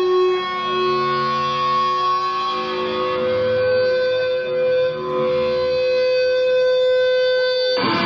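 Electric guitar solo: long sustained notes, one stepping up about half a second in and held for several seconds, before fuller guitar chords break in at the very end.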